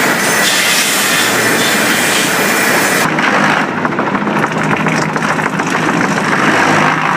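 Sawmill machinery running loudly. A dense, hissing noise about three seconds in gives way to a lower, rattling clatter.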